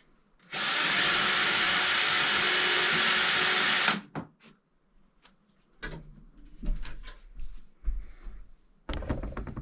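Power drill running steadily with a high whine for about three and a half seconds, then stopping. Scattered knocks and handling noises follow.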